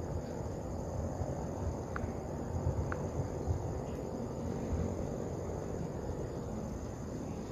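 Low, continuous rumble of distant thunder from the Taal Volcano eruption's lightning-laced ash plume, under a steady high trill of crickets. Two brief, faint chirps come about two and three seconds in.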